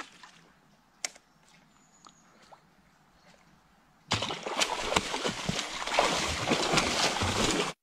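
A few faint clicks, then about four seconds in a hooked fish starts thrashing at the surface: loud, continuous splashing and slapping of water that cuts off suddenly just before the end.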